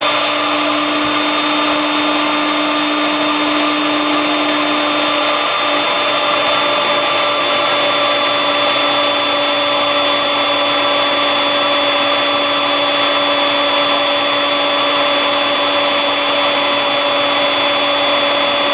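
Vacuum-cleaner-type universal motor blower on a wood gasifier's flare pipe running steadily: a loud, even whine with several steady tones over a hiss.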